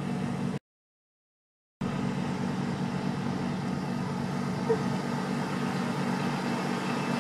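Steady hum of an engine running, even and unchanging, that drops out completely for about a second near the start.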